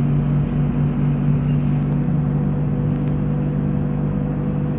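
Cabin sound of a ZiU-682G-012 trolleybus on the move: a steady electric hum of unchanging pitch over road and tyre rumble.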